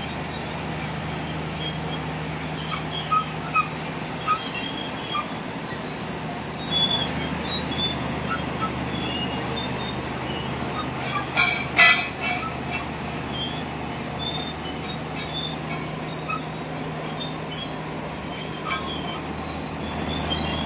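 D155A bulldozer running with a steady low engine hum, overlaid by scattered short high-pitched metallic squeaks and squeals. There is a sharp metal clank a little past halfway.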